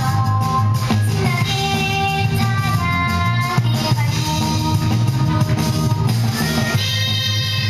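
Pop song with singing over guitar and drums.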